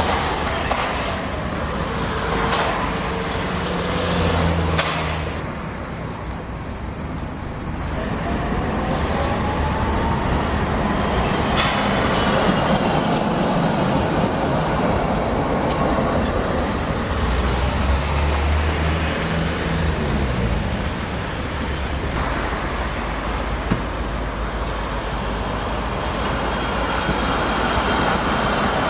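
City trams passing on street track amid traffic: a steady running rumble of wheels on rail with a whine that rises and falls in pitch as they pull by.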